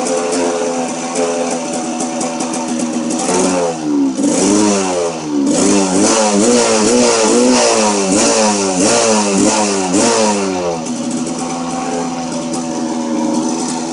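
Kawasaki KDX200 two-stroke single-cylinder dirt bike engine idling, then blipped repeatedly in quick throttle revs for several seconds before settling back to a steady idle.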